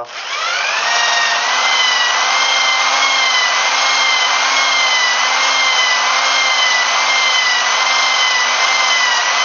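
Electric drill spinning up and running steadily, turning a valve against its seat with lapping paste to lap it in. Its whine rises over the first second, then holds with a slight waver.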